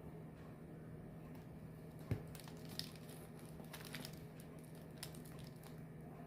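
Faint handling sounds over a steady low hum: a sharp click or knock about two seconds in, then a few softer crackles and taps.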